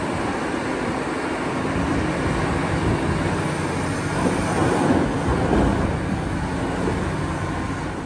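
Caterpillar 6015B hydraulic mining excavator working. Its diesel engine runs steadily under load as it swings a full bucket of coal and rock over a dump truck and spills it into the truck's bed.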